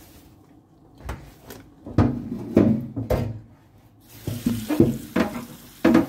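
Kitchen tap running into a stainless steel sink, the water starting about four seconds in. A string of short knocks and rubbing comes from a cloth and vegetables being handled against the steel.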